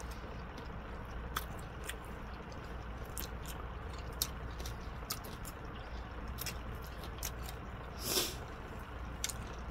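Close-up chewing of fried chicken wings: wet mouth clicks and lip smacks as meat is pulled from the bone and fingers are licked, over a steady low hum. A brief, louder rush of breathy noise comes about eight seconds in.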